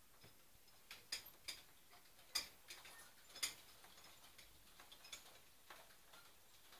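A few scattered faint clicks and ticks over near silence, the two loudest a second apart about two and a half and three and a half seconds in.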